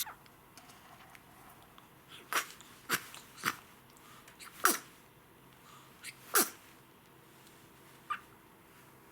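A newborn baby sneezing five times in quick succession, each sneeze short and sharp and sliding down in pitch.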